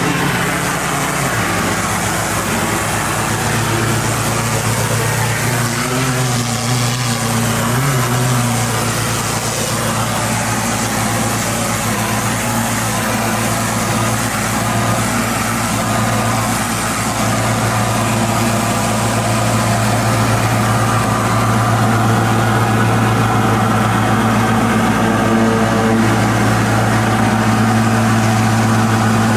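Pressure washer engine running steadily under the hiss of high-pressure water spraying on concrete.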